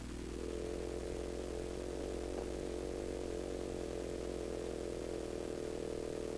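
Arduino Uno running Mozzi wavepacket synthesis, heard through a small speaker: a steady, buzzy, engine-like drone.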